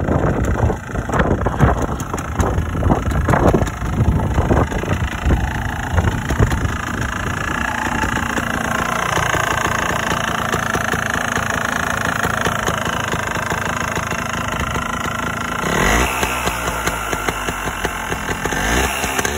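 Scorpa SY250 trials bike's Yamaha TYZ 250 cc two-stroke single-cylinder engine running. It fires unevenly for the first several seconds, then settles into a steadier, higher-pitched run, with a brief rise in revs about sixteen seconds in.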